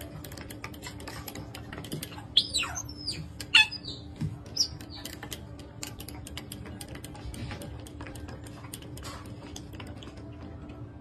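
Otters giving high squeaks, two loud calls sliding sharply downward a couple of seconds in and a fainter one after. Under them runs a rapid clicking as they bite and lick at the nozzle of a water bottle to drink, over a steady low hum.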